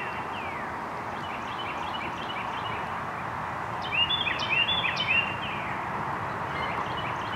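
A wild songbird singing phrases of quick, down-slurred, whistled notes. The loudest phrase comes about four seconds in, with fainter phrases between, over a steady outdoor hiss.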